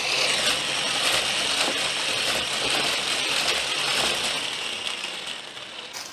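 Electric hand blender with a balloon-whisk attachment whipping fresh cream in a plastic bowl: a steady whirring motor with the whisk churning through the cream. The whirr fades out near the end as the beater is switched off, the cream whipped.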